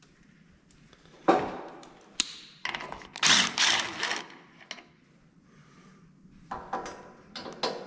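Tool work on the machine: sharp metallic clanks and a burst of clattering, then a run of quick clicks and knocks near the end.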